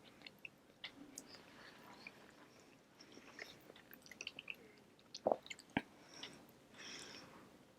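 A person chewing food close to the microphone: soft, wet chewing and mouth clicks, with two sharper clicks a little past halfway.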